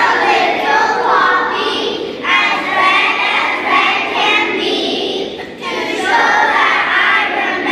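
Children's choir singing together in unison, with short breaks between phrases about two seconds in and again near six seconds.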